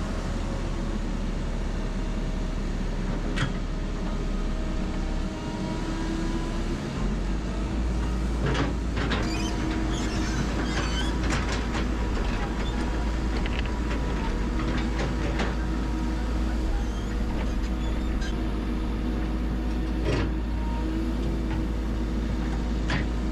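Hydraulic excavator running steadily under work. From about eight seconds in, a run of sharp knocks and scrapes comes as the bucket digs and sets a boulder.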